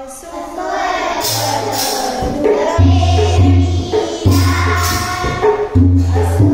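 A group of schoolchildren singing a Marathi poem together, accompanied by a two-headed hand drum whose deep strokes come in about a second in and play in a steady pattern from about three seconds.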